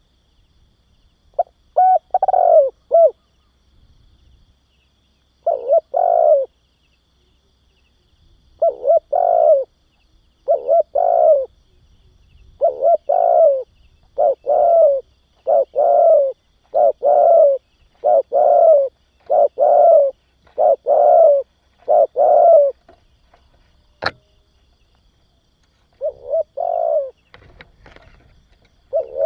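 Spotted dove cooing in repeated phrases, then a steady run of coos about one a second through the middle. A single sharp click sounds about 24 seconds in.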